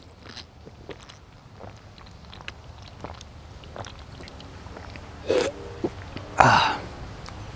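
Drinking from a bottle of coffee drink: a few small clicks and handling noises as the bottle is opened and raised, then a gulp about five seconds in and a short breathy exhale just after.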